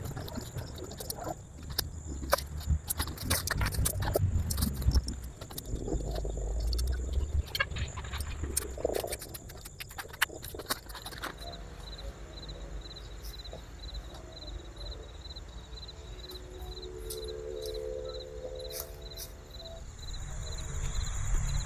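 Nylon tent fabric rustling and tent poles clicking as a dome tent is pitched by hand. From about halfway, a cricket chirps steadily in the background.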